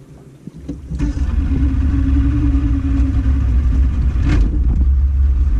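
Boat engine coming up to speed about a second in, then running steadily with a deep rumble and a constant hum. A brief hiss comes about four seconds in.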